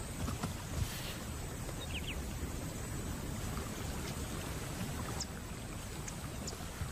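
Shallow marsh water splashing and trickling under a young lion's paws as it steps through wet grass at the water's edge, with a soft thud about a second in and a few short high chirps.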